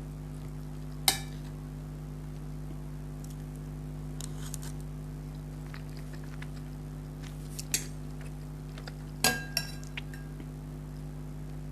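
A few sharp clinks of tableware as food is eaten from a dish: one about a second in, one near eight seconds, and three in quick succession a little later, over a steady low electrical hum.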